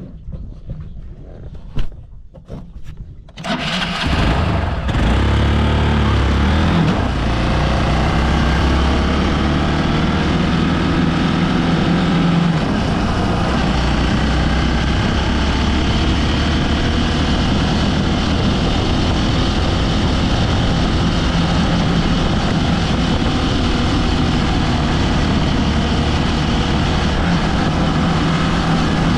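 Hero Xpulse 200 4V's single-cylinder engine starting about three and a half seconds in, after a few light clicks and one sharp knock, then revving unevenly for a few seconds. From about seven seconds in it runs steadily as the motorcycle rides off-road.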